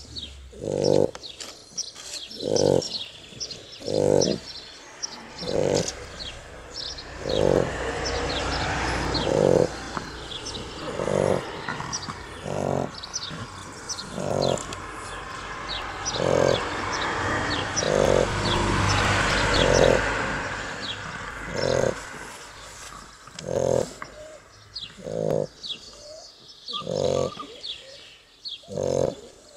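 Shar Pei puppies snoring in their sleep, one snore about every second and a half in a steady rhythm.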